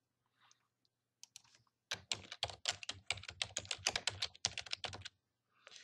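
Typing on a computer keyboard: a fast run of keystrokes starting about two seconds in and lasting about three seconds, after a few faint isolated clicks.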